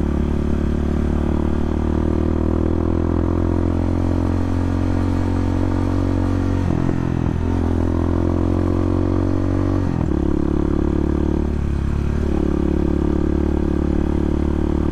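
Bashan 250 dirt bike engine running steadily while riding uphill. The engine note briefly dips and shifts pitch about seven, ten and twelve seconds in.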